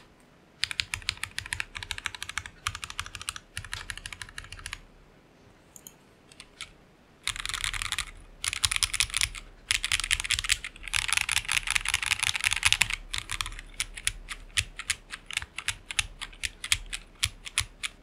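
Lapis60 full-acrylic, gasket-mount custom mechanical keyboard with JWK black linear switches and Cherry-profile PBT keycaps, typed on fast in bursts, with a high-pitched, clacky sound. About five seconds in the typing stops for a couple of seconds, and near the end it slows to separate, evenly spaced keystrokes.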